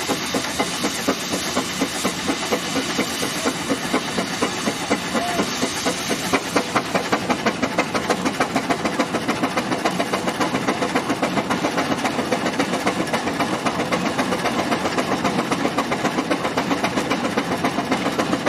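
Fowler steam ploughing engine running, its valve gear and motion beating in a quick, even rhythm over a steady hiss of steam. The beat picks up a little about seven or eight seconds in.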